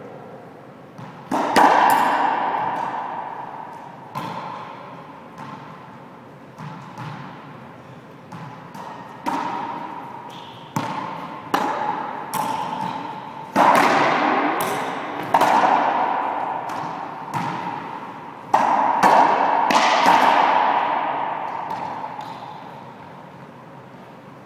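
Racquetball rally: sharp smacks of the ball off the racquets and the court walls, roughly one a second, each ringing on in the echo of the enclosed court. The hits stop about four seconds before the end and the echo dies away.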